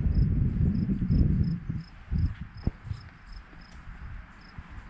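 Crickets chirping steadily, two or three short high chirps a second. Under them is a low, uneven rumble of wind on the microphone, loudest in the first two seconds and then dying down.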